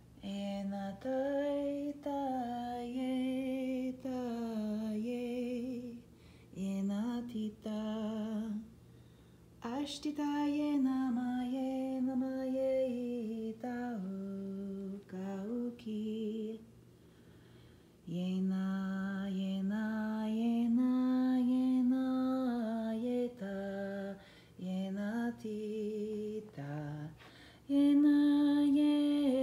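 A woman singing a slow, unaccompanied song in long held notes, phrase by phrase with short pauses between.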